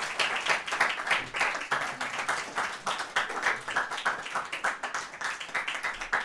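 Audience applause: many hands clapping densely and steadily.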